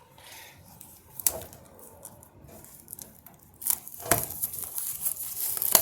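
Cardboard trading-card box being handled: a click early, then sharp clicks and crinkly rustling from about three and a half seconds on, loudest around four seconds and again just before the end.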